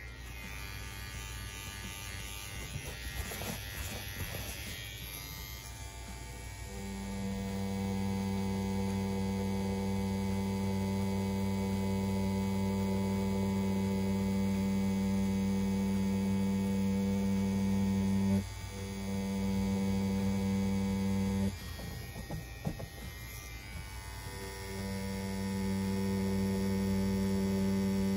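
CNC P6 rotary tattoo pen, set to a 3.8 mm stroke, running with a steady hum while lining. It starts about seven seconds in, drops out for an instant, stops and then starts again a few seconds later.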